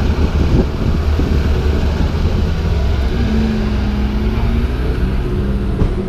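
Porsche 918 Spyder's V8 engine running steadily, a deep, even exhaust rumble.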